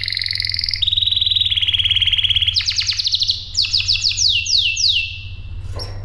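Canary singing: a fast, even trill of high notes, then a run of quick notes that each fall in pitch, the run slowing toward the end. A steady low hum sits underneath throughout.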